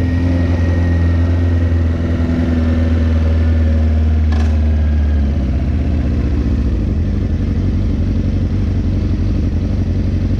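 Motorcycle engine running at idle, a steady low note for about five seconds that then turns rougher and less even, with one sharp click in between. The bike is misbehaving, which is put down to loose battery terminals.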